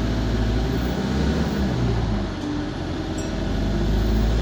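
Alexander Dennis Enviro200 single-deck bus heard from inside the saloon while driving: a steady low engine drone with road rumble, its pitch shifting slightly and swelling a little near the end. The uploader says this Euro 6 bus has a burst turbo.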